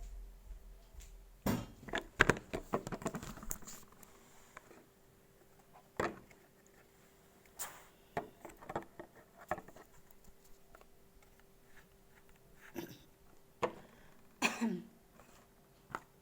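Small objects being handled on a table, heard as scattered clicks and knocks. There is a quick run of them about a second and a half in, then single knocks every second or two, over a faint steady hum.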